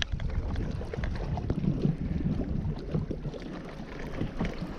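Wind rumbling on the microphone aboard a fishing boat, uneven and low, with a few faint knocks.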